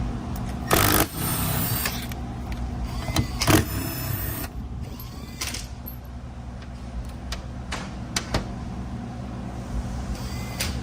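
Short whirring runs of a power ratchet or driver backing out transmission valve body bolts, the longest about a second long near the start, followed by scattered clicks and taps of bolts and tools, over a steady low shop hum.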